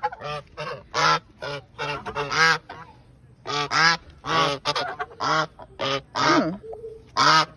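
A flock of domestic geese honking over and over at close range, short calls about two a second with a brief lull partway through, as the birds crowd in expecting food.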